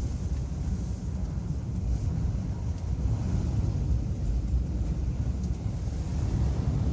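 Strong wind buffeting the microphone: a continuous low, gusty rumble that swells and dips without a pitched tone.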